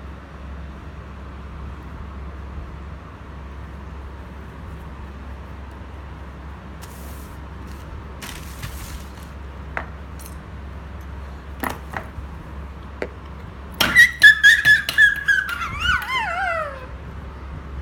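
Phone-box packaging being handled: scattered taps and clicks, then near the end a run of rapid clicks with a squeak that slides down in pitch, like cardboard or plastic rubbing as the box is worked open. A steady low hum runs underneath.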